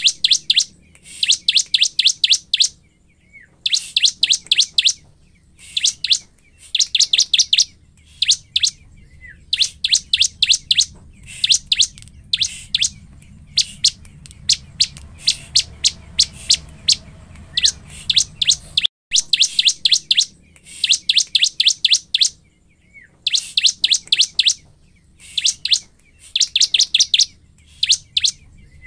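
Bar-winged prinia (ciblek) singing: bursts of rapid, sharp, high notes, each burst under a second long, repeated again and again with short pauses.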